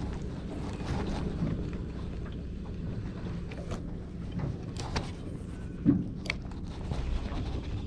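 Steady low rumble of wind and water around a small boat on open water, with a few light knocks and clicks, the loudest about six seconds in.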